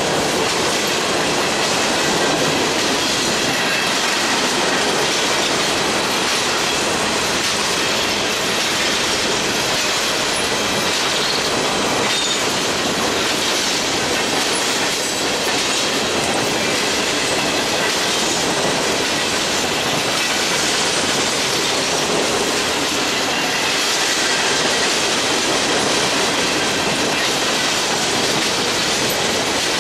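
Norfolk Southern coal train's hopper cars passing at speed: a steady, unbroken rumble and rattle of steel wheels on the rails and clatter over the rail joints.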